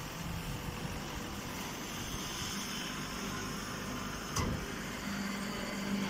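Vertical hydraulic baler and its inclined feed conveyor running, a steady mechanical noise. There is one sharp knock about four and a half seconds in, and a steady low hum comes in about five seconds in.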